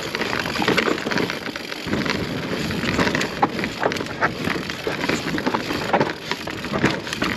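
Mountain bike rolling over loose volcanic rock: tyres crunching on stones and the bike rattling in a continuous run of small clicks, with wind on the microphone.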